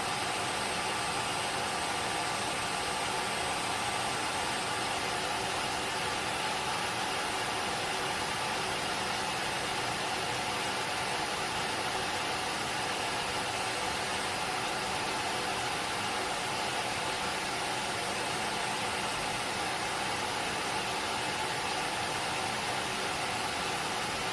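Tineco Floor ONE S7 PRO wet-dry floor cleaner in the air-drying stage of its self-cleaning cycle, its motor blowing air through the brush roller with a steady, even rush.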